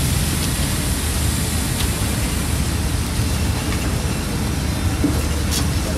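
Hudson Oscar portable bandsaw mill running: a steady engine hum under an even rushing hiss.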